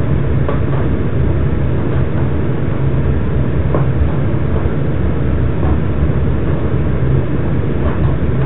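A steady, loud low rumbling drone, with a few faint clicks scattered through it.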